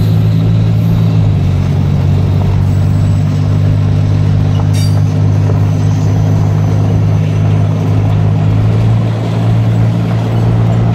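Car driving at a steady speed alongside a freight train, heard from inside the cabin: a steady low engine and road drone.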